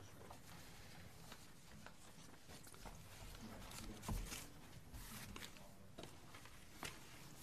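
Quiet room tone with a faint murmur of distant voices and a few small scattered clicks and knocks.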